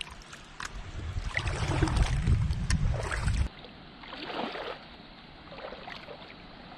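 Shallow seawater sloshing and trickling in a reef tide pool, with a low wind rumble on the microphone and small clicks. About three and a half seconds in it drops abruptly to a quieter, thinner trickle.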